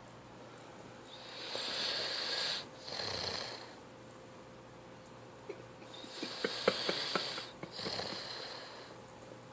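A boy snoring in his sleep: two snoring breaths about five seconds apart, each in two parts split by a brief gap, the second one rattling.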